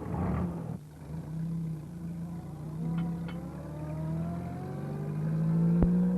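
Small van engine starting up and pulling away, its pitch rising steadily as it accelerates, with a few light clicks near the end.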